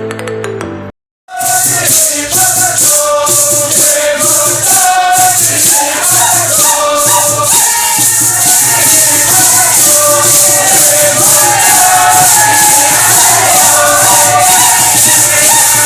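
A short chiming intro cuts off about a second in. After a brief gap, a group sings a chant over the continuous rhythmic shaking of maracas.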